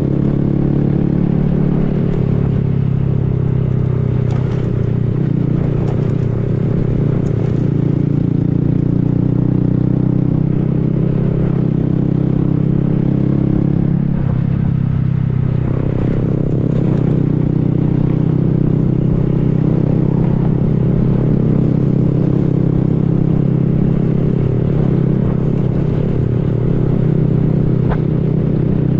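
Honda Grom's small single-cylinder engine running steadily while riding. About halfway through, the engine pitch dips briefly and then picks back up.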